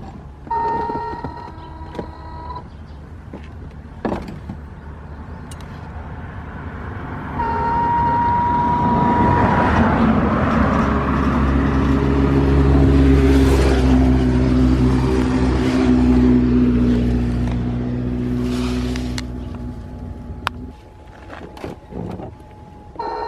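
Suzuki Skywave 650 (Burgman 650) scooter making a steady high whistle, like a steam whistle or a kettle coming to the boil. It sounds twice, for about two seconds each time: about half a second in and again at about seven seconds. Under it the engine runs and grows louder through the middle, then dies down near the end. The owner ties the whistle to fuel tank internal pressure and has been told it is not a fault.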